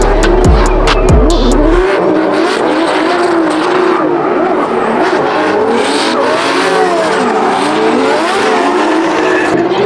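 Drift cars' engines revving up and down, their pitch wavering as they are held on the throttle, over the hiss and squeal of spinning tyres. Bass-heavy electronic music ends about two seconds in.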